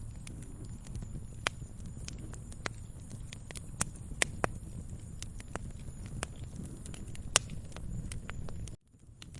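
Wood fire crackling: irregular sharp pops and snaps over a low, steady rumble of the burning logs. The sound drops out for about half a second near the end, then resumes.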